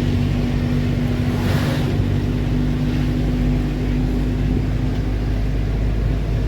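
A vehicle's engine and road noise making a steady low drone. About a second and a half in, a brief rush of hiss swells and fades.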